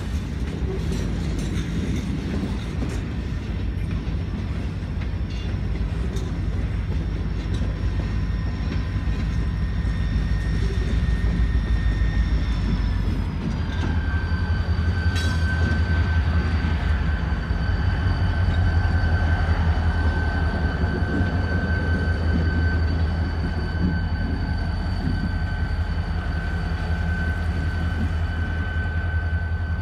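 Freight train cars rolling past with a steady low rumble and a high, steady squeal that steps down slightly in pitch about 13 seconds in. The train is being pushed by a GP35 locomotive at the rear.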